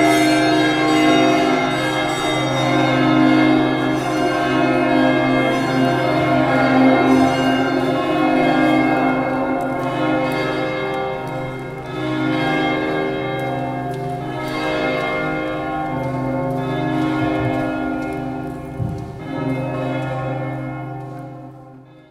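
Bells ringing in overlapping, sustained tones, with new strikes every couple of seconds over a steady low hum, fading out at the very end.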